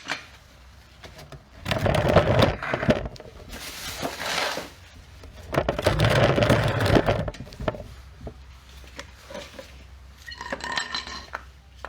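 Metal clattering and clinking as wheel lug bolts are worked in and out with a wrench, in two longer bursts about two and six seconds in, with a short metallic ring near the end.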